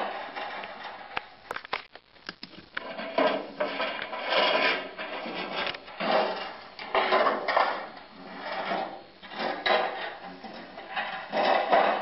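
Repeated rasping, scraping strokes, as of something rubbed or scraped on wood, in irregular swells, with a few sharp clicks about one to three seconds in.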